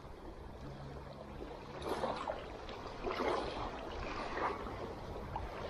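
Shallow lake water lapping and splashing at the bank, in irregular surges about once a second.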